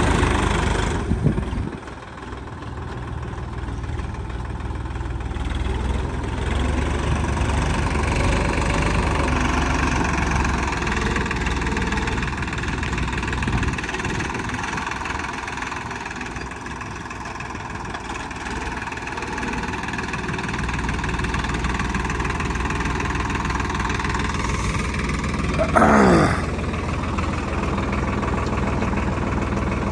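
Swaraj 963 FE tractor's three-cylinder diesel engine running steadily with its silencer broken. A brief, loud sliding squeal comes near the end.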